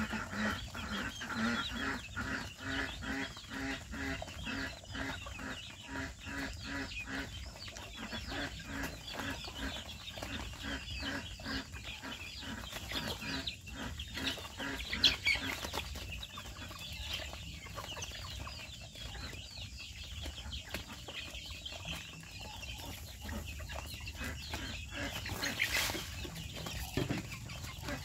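A flock of chickens clucking, with one bird giving an even run of low clucks, about two or three a second, through the first half. Chicks peep high and quick throughout.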